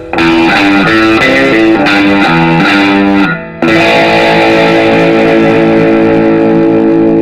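Distorted electric guitar music. A quick run of notes is followed, about three and a half seconds in, by a sustained ringing chord.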